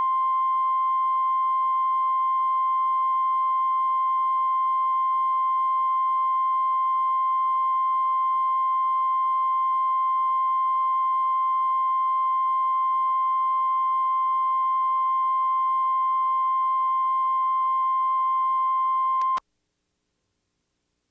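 Broadcast 1 kHz reference tone, the steady test tone that runs with colour bars, cutting off suddenly near the end.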